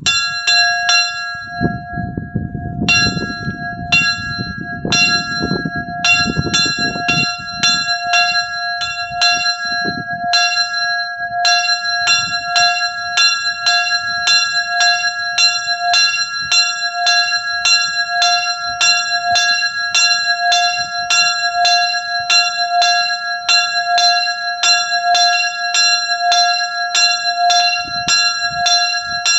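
Small bronze church signature bell (sygnaturka) swinging and ringing, its clapper striking about twice a second after an uneven start with a brief pause near the beginning.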